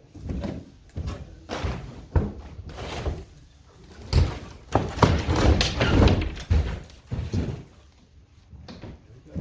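Irregular wooden knocks and thumps of plywood roof panels being pried loose and handled, loudest about halfway through.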